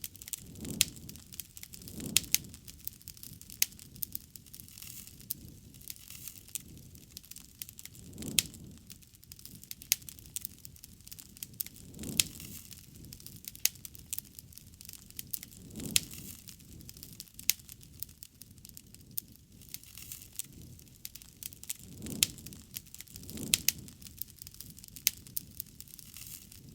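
Wood fire crackling: many sharp pops and snaps of varying strength, with soft low rushes of flame every few seconds.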